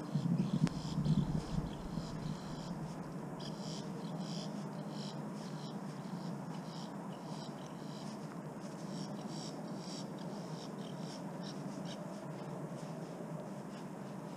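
Insects chirping in quick, repeated pulsed bursts, with a steady low hum underneath and a short low rumble in the first two seconds.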